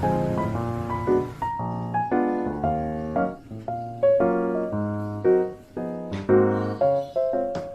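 Background piano music playing a gentle melody of chords and single notes. A soft hiss underneath stops about a second and a half in, and a few faint clicks come near the end.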